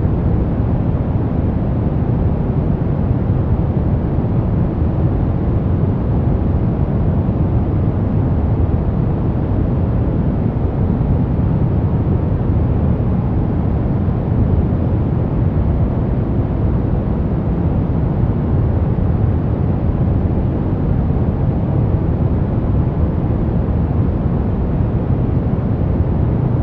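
Brown noise: a steady, deep rushing hiss, strongest in the low end and dull in the highs, with no changes.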